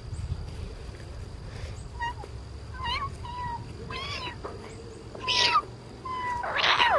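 Domestic cat meowing repeatedly in short calls, about one a second, with a longer, louder meow near the end that falls in pitch.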